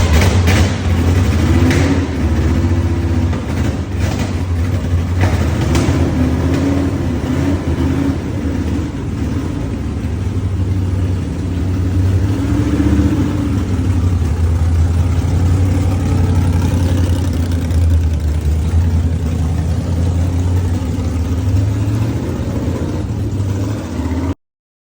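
Mercury Comet A/FX drag car's 427 V8 running loud and rough just after a cold start, its pitch swelling and dropping a little, with a few sharp cracks in the first seconds. The sound cuts off abruptly near the end.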